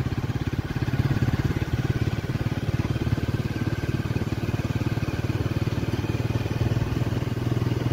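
A vehicle engine running steadily while driving at an even speed, heard from on board: a constant low engine note made of rapid firing pulses.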